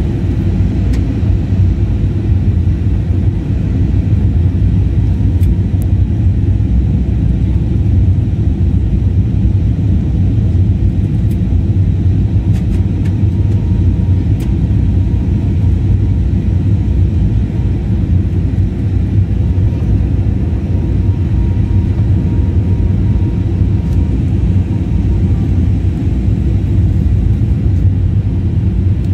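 Steady cabin noise of a jet airliner in flight, heard from a window seat: a deep, even rumble of engines and rushing air.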